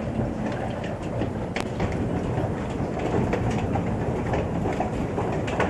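Storm wind in a tornado's wake, a steady low rumble, with scattered sharp ticks of hailstones hitting.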